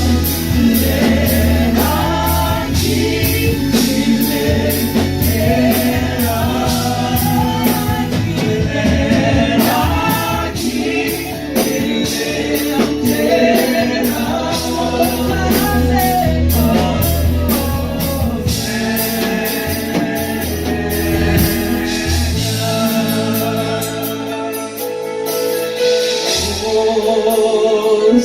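Church worship band playing a gospel song, with voices singing over a steady drum beat. The low bass drops out for a few seconds near the end, then returns.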